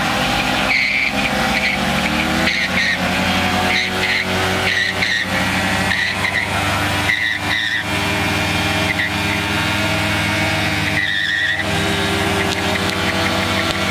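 Kawasaki Ninja parallel-twin sport bikes doing burnouts: the engines are held at steady high revs while the rear tyres spin on the paving, squealing in short bursts every second or two.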